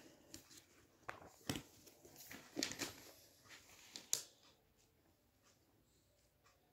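Faint handling noises: a few light clicks and rustles in the first four seconds, the sharpest about four seconds in, then low room tone.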